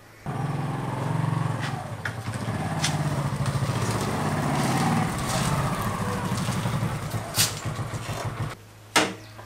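Motorcycle engine running as the bike rides in at low speed, then switched off about a second before the end, followed by a single sharp click.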